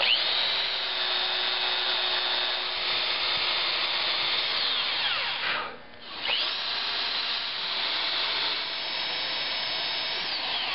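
Corded electric drill boring a dowel hole into the end grain of a wooden chair leg. It runs steadily, winds down and stops about five and a half seconds in, then spins back up and drills again, winding down near the end.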